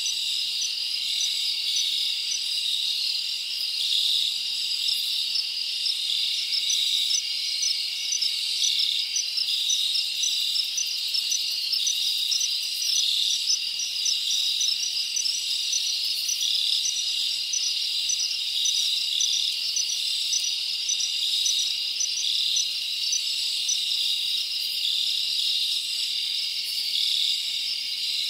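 A chorus of crickets: a steady high-pitched trill with short chirps repeating evenly, about two a second.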